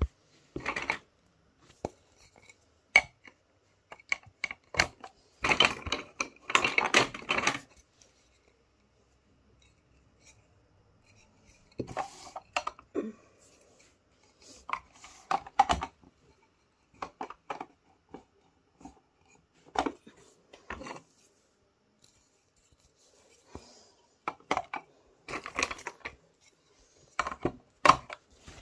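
Wooden toy railway track pieces and plastic track supports being handled and set in place: irregular clicks and knocks with short bursts of clattering, the longest a few seconds in.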